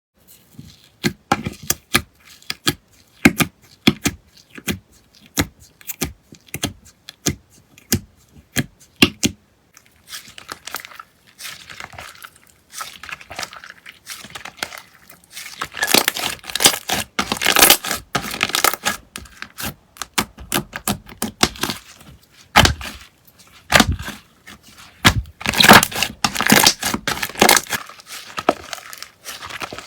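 Slime squeezed and poked by hand. For about the first nine seconds it gives sharp separate pops, then from about ten seconds in, denser crackling, crinkly squishes.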